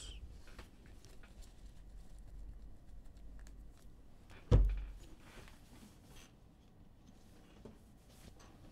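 Faint handling of trading cards on a table, soft clicks and rustles, with one dull, sudden thump about four and a half seconds in.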